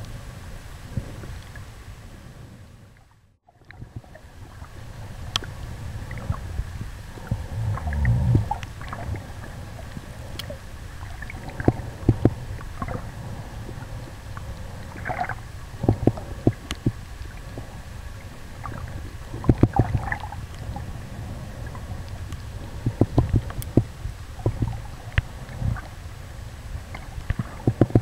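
Muffled underwater sound through a point-and-shoot camera sealed in a plastic underwater bag: a steady low rumble of moving water with frequent sharp clicks and knocks. The sound fades almost to nothing about three seconds in, then comes back.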